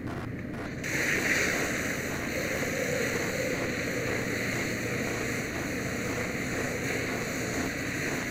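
Fire hose nozzle flowing water onto a burnt-out vehicle: about a second in, a loud steady rush of spraying water starts, with steam hissing off the hot wreck.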